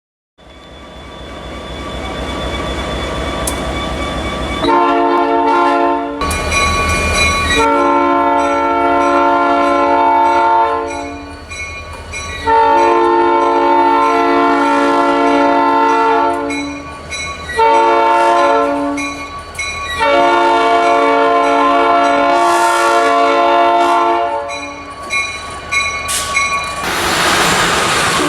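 Locomotive air horn with several chimes sounding as a chord: a brief first blast, then long, long, short, long, the pattern of a grade-crossing signal, over the rumble of the approaching train. Near the end the train passes close with loud wheel and rail noise.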